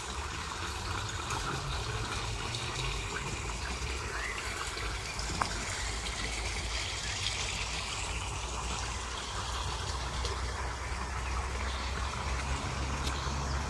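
Water splashing steadily from a small spout in a stone wall into a basin, over a low steady rumble.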